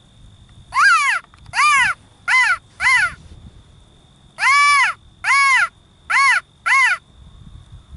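A mouth-blown hunting call, blown by hand in two quick series of four short notes, each note rising then falling in pitch.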